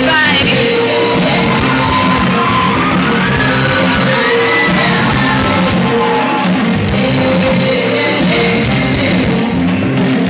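Loud music playing steadily.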